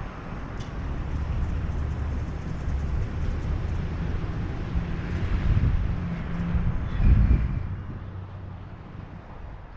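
Low engine rumble of a passing vehicle with wind on the microphone, swelling to its loudest about seven seconds in and then fading away.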